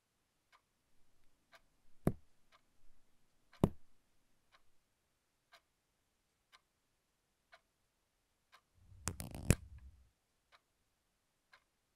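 A clock ticking softly about once a second. Two sharper clicks come about two and three and a half seconds in, and about nine seconds in there is a short burst of handling noise with a sharp click.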